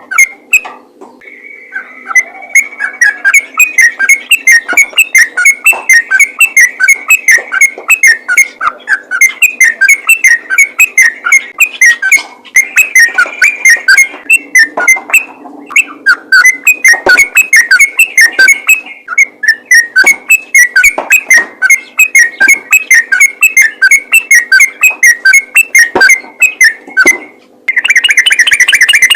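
Yellow-vented bulbul (trucukan) singing a fast, rambling song of rapid whistled notes, many per second. The song breaks off briefly about a second in and again around the middle, then turns louder and denser near the end.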